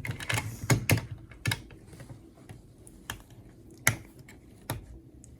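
LEGO plastic pieces clicking and tapping as they are handled and pressed into place. There is a quick run of sharp clicks in the first second or so, then single clicks a second or more apart.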